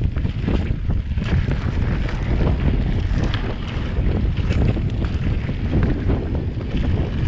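Wind buffeting the camera microphone with a constant rumble while a mountain bike rolls over a rough gravel trail, its tyres and frame rattling in frequent small clicks and knocks.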